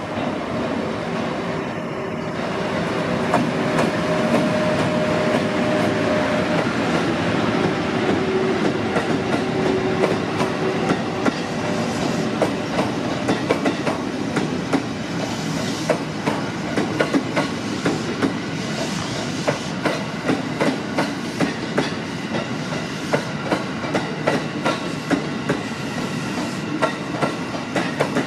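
EF81 electric locomotive hauling an unpowered E531-series electric multiple unit slowly past, its wheels clacking over rail joints and points. The clacks come more often in the second half. A steady tone sounds under the rumble for the first ten seconds or so.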